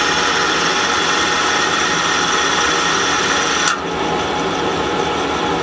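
The live tool spindles of a KSI SQC-38 CNC Swiss lathe running empty at about 1,000 RPM, with no collets, tools or nuts fitted: a steady mechanical whir with a rattling edge and several steady whining tones. About two-thirds of the way through, the higher part of the sound cuts off suddenly and the whir carries on slightly quieter.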